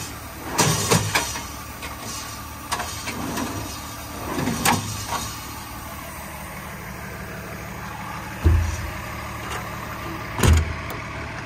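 Metal drawers in a truck service-body compartment sliding and clacking shut, with sharp latch clicks. Later come two heavy thumps about two seconds apart as the compartment door is swung shut. A steady low engine hum runs underneath.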